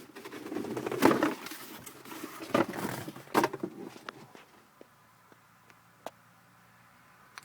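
Rustling with a few sharp knocks or clicks, then near silence with a few faint ticks.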